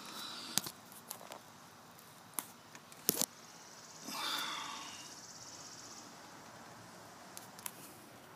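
Handling noise from a phone camera being set down and propped up against the engine bay: a few sharp clicks and knocks, a double knock about three seconds in, then a brief rustle about four seconds in.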